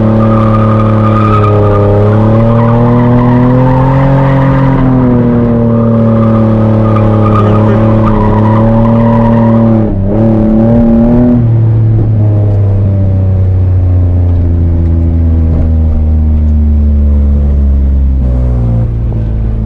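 Nissan 350Z's 3.5-litre V6 held high in the revs through a drift, the pitch swinging up and down as the throttle is worked, with the tyres sliding on the wet road. About ten seconds in the revs briefly dip, then the engine settles to a lower, steadier note that falls gradually and drops again near the end.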